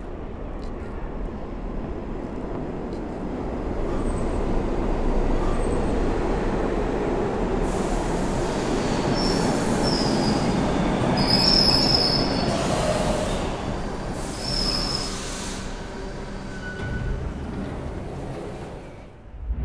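A train pulling into a station: its rumble builds, then the wheels squeal in several high shrieks midway before the rumble eases as it slows.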